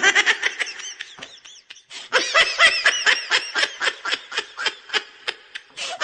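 The 'atumalaca' laugh sound effect: high-pitched, choppy laughter in rapid pulses, about five a second. It dips briefly about a second and a half in, then carries on.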